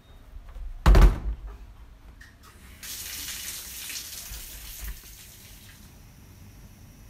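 A single heavy thump about a second in, then about three seconds of steady hissing, rushing noise that stops about a second before the end.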